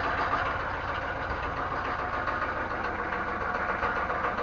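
1995 Chevy truck's 6.5-litre V8 diesel engine idling steadily, freshly started.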